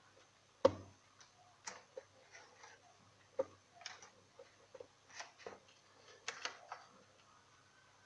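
Hard dry chickpeas being crushed by hand: irregular sharp cracks and knocks, one loudest a little under a second in.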